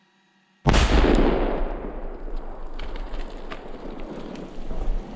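About 50 lb of Tannerite (binary exploding target) strapped to a poplar tree detonating: a sudden, very loud blast about half a second in, then a long low rumble that slowly dies away, with a few sharp cracks in the tail.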